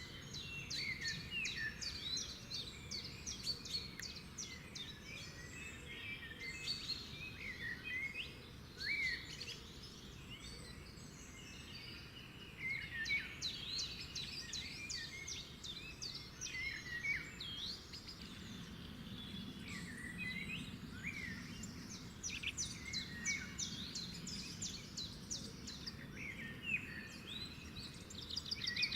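Several birds singing at once: overlapping chirps, short whistled notes and fast trills, with a faint low hum in the background in the second half.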